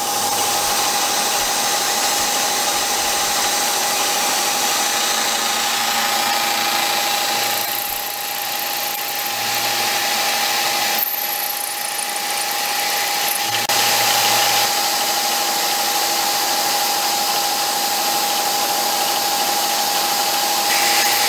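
CNC milling machine's end mill cutting the rear-sight pocket into a pistol slide: a steady machining noise with a constant tone and a high hiss, shifting slightly a few times as the cut goes on.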